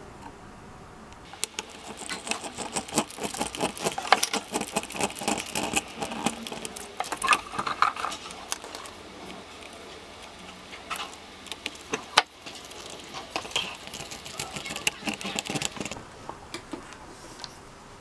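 Screwdriver driving screws into a 3D-printed plastic gearbox housing, with rapid clicking and scraping from about a second in until near the end.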